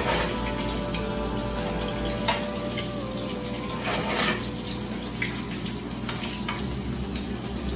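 Hot butter sizzling in a small frying pan as a fried egg is spoon-basted, with a sharp clink of the metal spoon against the pan a little over two seconds in and brief flares of sizzle as butter is scooped over the egg.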